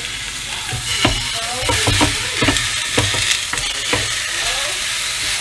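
Raw seasoned pork ribs sizzling on the preheated grill plate of a Ninja Foodi XL indoor grill as more are laid on, with a run of sharp clicks from a metal fork starting about a second in.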